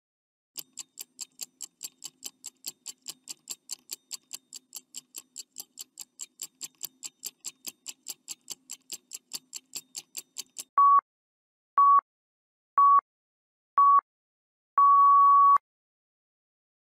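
Countdown-timer sound effect: a clock ticking fast and evenly, about four ticks a second, for some ten seconds. Then four short beeps at one pitch a second apart and a final longer beep, marking that time is up.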